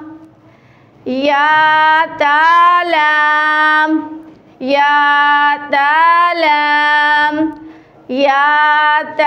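A high voice chanting Arabic letter names in a drawn-out, sing-song Qur'an-reading drill, spelling out joined-letter combinations such as baa-yaa-laam and yaa-taa-laam. There are three chanted phrases, each of a few held syllables, with short pauses between them.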